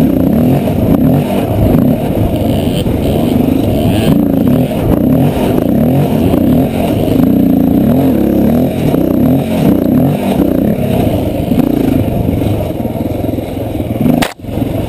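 Dirt bike engine running hard on a sandy trail, its pitch rising and falling as the throttle is worked on and off. A sharp click and a brief dropout come near the end.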